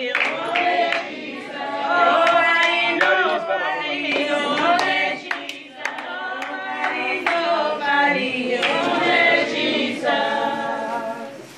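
Several voices singing a song together, with hand claps sounding through it.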